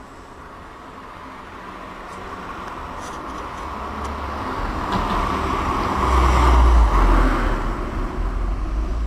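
Street traffic: a vehicle approaches with a deep rumble, growing steadily louder and passing close about six to seven seconds in, as traffic noise carries on.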